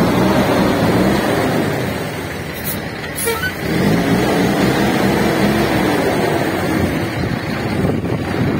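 Kenworth semi-truck's diesel engine running close by, its note rising and falling, easing off around three seconds in and then climbing again. A brief hiss sounds near that dip.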